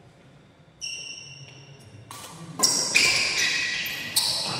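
Badminton doubles rally: sharp racket hits on the shuttlecock and high squeaks of court shoes on the floor, several in quick succession, louder from about halfway through.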